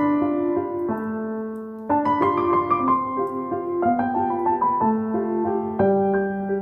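Background piano music, a gentle melody of sustained notes.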